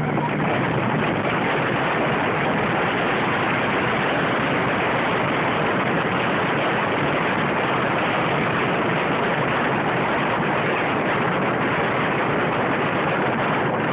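Steady rushing noise inside a moving open-frame dune buggy: wind hitting the microphone over the buggy's engine.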